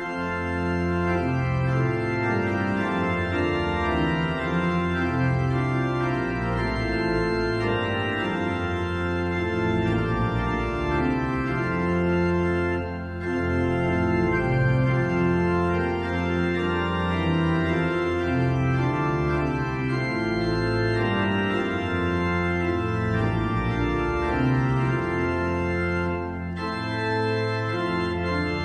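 Organ playing slow, sustained chords, with short breaks between phrases about halfway through and near the end.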